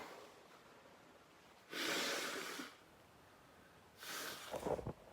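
A person blowing a puff of breath onto a tissue for about a second, then a shorter blow about four seconds in, followed by a quick run of short low sputtering pulses.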